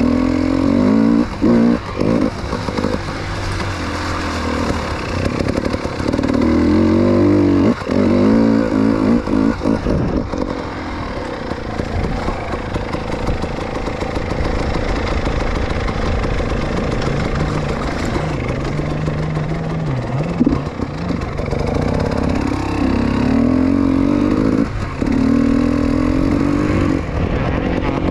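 Two-stroke fuel-injected (TBI) enduro motorcycle, a new engine still being run in, revving up and down again and again as it is ridden off-road.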